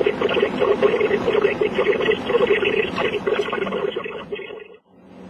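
Radio audio with a narrow, telephone-like sound, dense and fluttering with no clear words. It fades out about four and a half seconds in and is followed by a steady low hum with faint hiss.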